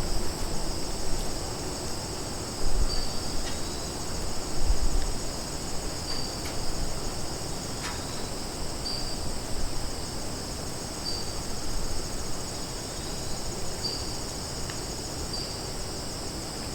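Crickets chirping in a steady high chorus, with short higher chirps repeating every second or two. Underneath is a low rumbling noise on the microphone, with louder bumps about three and five seconds in.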